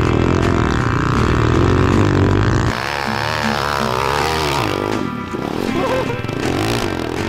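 Small single-cylinder pit bike engine running, then revving up and down repeatedly from about three seconds in, under background music.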